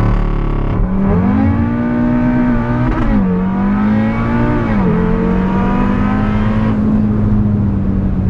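Tuned Audi RS3's turbocharged 2.5-litre five-cylinder with a free-flowing sport exhaust accelerating hard, heard from inside the car: the engine note climbs, drops at two quick upshifts about three and five seconds in, then settles into a steady note as the throttle eases.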